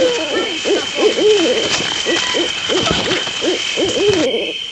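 Many overlapping hooting calls, each rising and falling in pitch, several a second, over a steady high-pitched whine.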